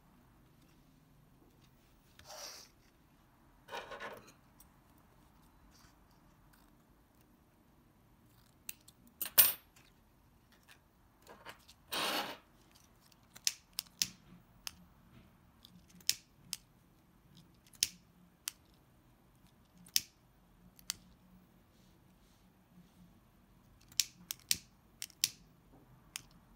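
A few soft rustles as organza ribbon is rolled, then a string of sharp clicks from a lighter being struck again and again, about one every second or two, to singe the edge of the rolled ribbon. The single loudest click comes about nine seconds in.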